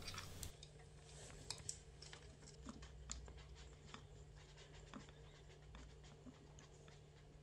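Near silence: faint room tone with a steady low hum and a few soft, scattered clicks.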